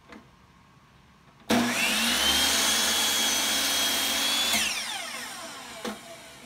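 An electric power tool switched on about a second and a half in, running at a steady high whine for about three seconds, then switched off and winding down with a falling pitch. A single click comes before it starts and another near the end.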